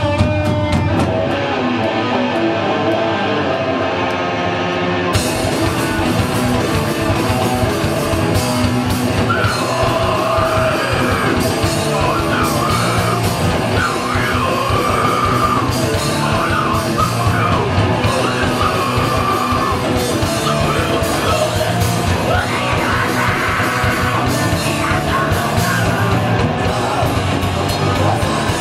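A heavy rock band playing live at full volume. For about the first five seconds the guitar plays without drums, then the drums and cymbals crash in with the full band. Shouted vocals come in from about nine seconds on.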